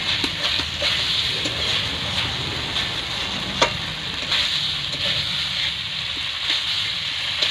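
Potato pieces and spices sizzling in hot oil in a metal karahi, being fried down while stirred and scraped with a metal spatula. Small clicks throughout and one sharp knock about three and a half seconds in.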